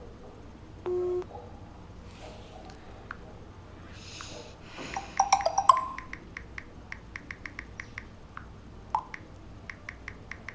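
A short electronic beep about a second in, then a brief rustle and a long run of quick, light, even clicks, about three or four a second.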